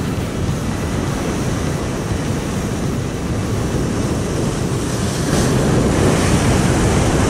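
Heavy surf churning and washing against rocks, with wind buffeting the microphone; it grows louder about five seconds in.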